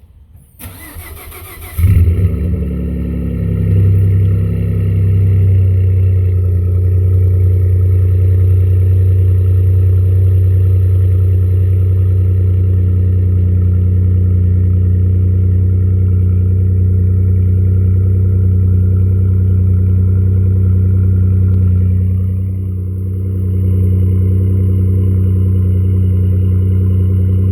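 A 2013 Ford F-150's 3.5L EcoBoost twin-turbo V6, fitted with an SPD Turbo Whistle exhaust, cold-started at freezing temperature. The starter cranks for about a second and a half, the engine catches with a loud burst, then settles into a steady, loud cold-start idle.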